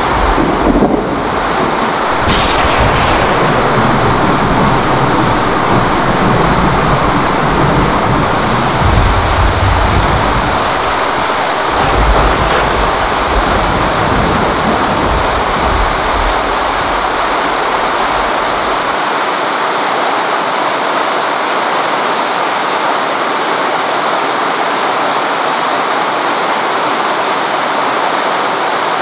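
Torrential rain pouring down in a steady, loud hiss. A low rumble runs under it and cuts off abruptly about nineteen seconds in.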